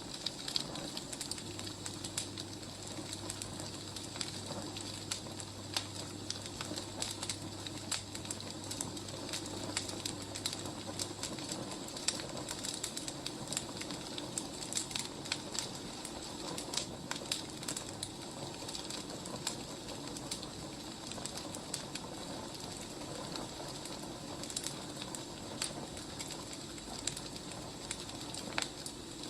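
Wood fire burning, with many small irregular crackles and pops throughout. A steady low hum runs under it for about the first ten seconds.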